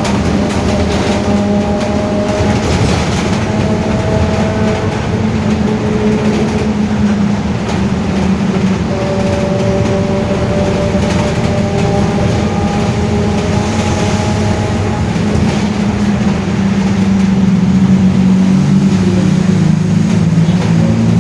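Mercedes-Benz OF-1721 city bus under way, its differential droning very loudly with several thin whining tones that slide slightly in pitch over a heavy low hum and running noise. It grows a little louder near the end.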